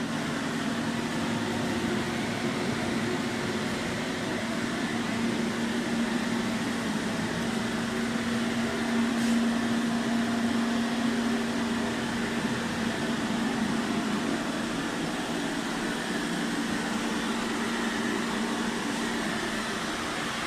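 Steady machine hum with a constant low drone and a faint higher whine, like a ventilation fan or similar running motor.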